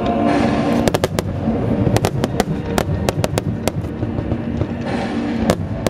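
Fireworks going off in a rapid string of sharp bangs and crackles, several a second from about a second in, over music with long held notes.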